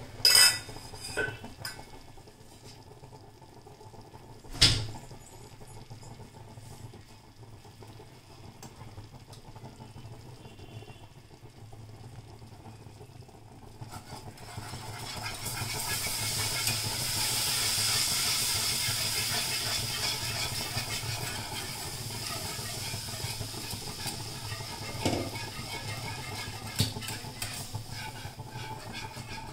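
A wire whisk clinking against a nonstick pan of butter-and-flour roux, then milk poured into the hot roux, which hisses and sizzles loudly for several seconds before easing off: the milk going in for a white sauce. Near the end the whisk clinks against the pan again.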